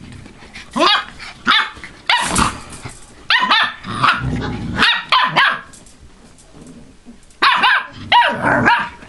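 Siberian husky puppies barking at one another in short, high-pitched bursts as they wrestle in play, with a pause about six seconds in before another flurry near the end.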